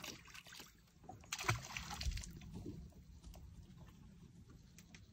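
Quiet boat drifting: faint water sloshing against the hull, with a few light knocks, the clearest about a second and a half in.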